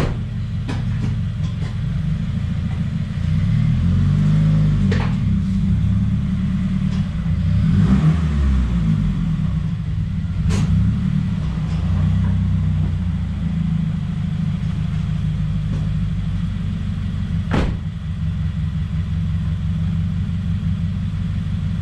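A 2017 Subaru WRX's turbocharged flat-four engine running, revved up and back down twice in the first half, with a few sharp clicks. The idle is rough and prone to stalling, which the owner guesses is a boost or vacuum leak after the charge pipe and top-mount intercooler were swapped.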